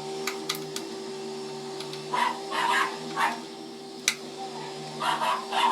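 A dog barking, a cluster of barks about two seconds in and another near the end, over a steady motor hum, with a few sharp clicks of small parts being handled.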